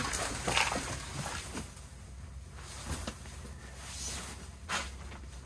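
Soft rustling and a few brief knocks as a sleeping bag and pad are handled and laid out on a camping bunk cot, over a steady low hum.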